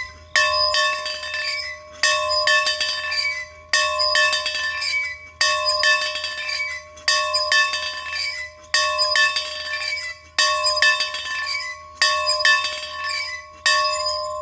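A bell rung in a steady rhythm, nine strokes about every 1.7 seconds, each stroke ringing on into the next. After the last stroke the ring fades away.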